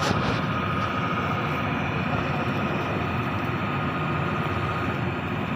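Heavy borewell drilling rig's engine running steadily, with a constant high whine over the engine noise.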